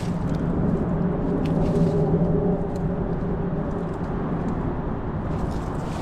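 Steady low hum of a motor vehicle running, a pitched drone that fades out about five seconds in, over outdoor background noise.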